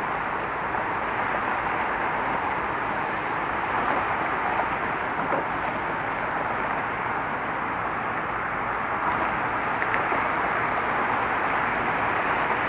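Steady road traffic: a continuous wash of car tyre and engine noise with no break.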